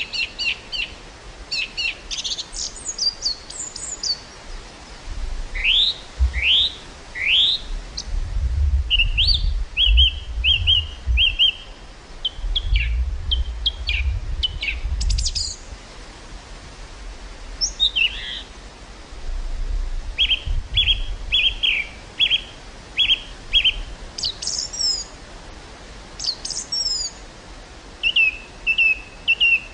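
Several small birds chirping and singing: repeated short notes and quick rising whistles. Gusts of wind buffet the microphone as a low rumble, strongest for about ten seconds from five seconds in and again briefly later.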